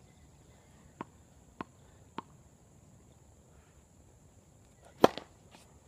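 A tennis ball bounced three times on a hard court, about half a second apart, then about five seconds in a single sharp, loud crack of the racquet strings striking the ball on the serve.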